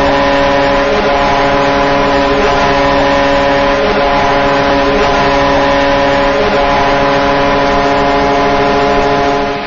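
Vancouver Canucks arena goal horn sounding one long continuous blast, a chord of several steady tones, over the crowd cheering the goal. It cuts off near the end.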